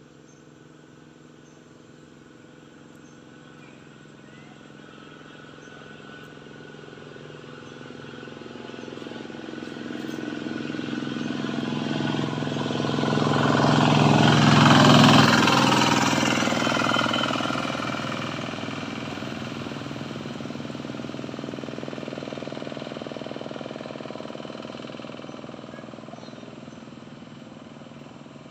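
A motor vehicle driving past: its engine grows steadily louder to a peak about halfway through, then fades away.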